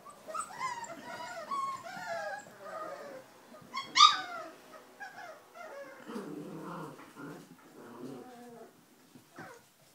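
A litter of four-week-old Giant Schnauzer puppies squealing and whining, many short high-pitched calls overlapping. One loud, sharp yelp falls in pitch about four seconds in, and lower calls follow in the second half.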